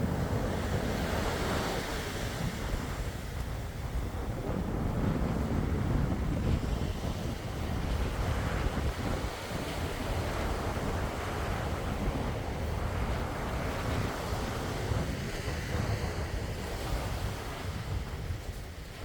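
Calm sea waves washing in, a continuous rush that swells and eases, with wind rumbling on the microphone.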